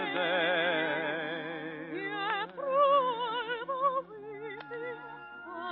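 Operatic soprano holding long notes with a wide vibrato over orchestral accompaniment. The sound is cut off above the midrange, as on an old radio recording.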